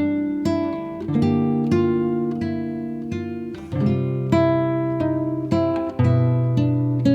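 Background music: acoustic guitar with plucked notes and chords struck about every half second to second, each ringing and fading.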